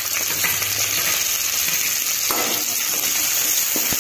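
Sliced onions, chillies and freshly added curry leaves sizzling steadily in hot oil in a kadai. Near the end a spatula stirs them, with a click or two against the pan.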